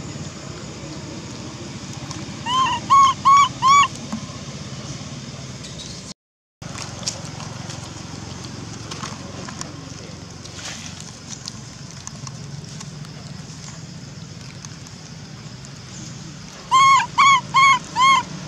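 A baby macaque crying: two runs of four short, high, arching cries, one about two and a half seconds in and the other near the end.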